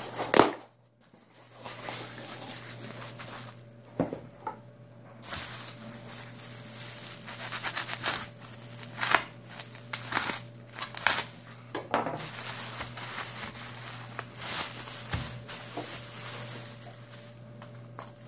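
Bubble wrap crinkling and crackling as it is cut open and handled, with irregular sharp pops and rustles. A loud short knock comes right at the start.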